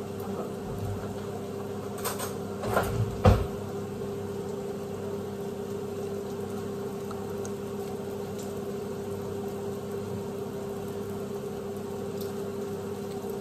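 A steady, low electrical hum from a kitchen appliance, with a few knocks and clatters of a spoon and blender cup being picked up on the counter about two to three seconds in, the loudest just after three seconds.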